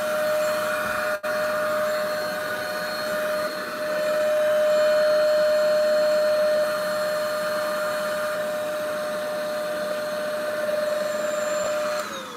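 Vacuum cleaner running with a steady whine as its hose sucks up sawn foam and debris. Near the end it is switched off and the whine starts to drop as the motor spins down.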